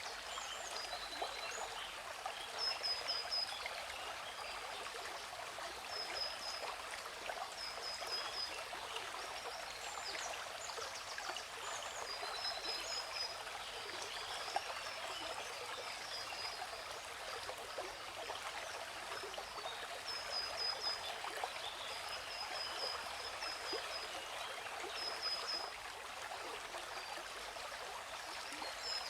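Steady rush of a waterfall, with a bird giving short high chirps in quick clusters of two or three every few seconds.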